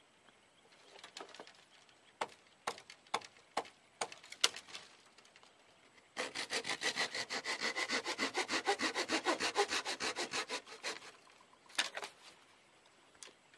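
Small hand saw cutting through a dry, dead branch with quick, even back-and-forth strokes for about five seconds. Before the sawing come a few sharp cracks of brittle wood, and a couple of knocks follow it.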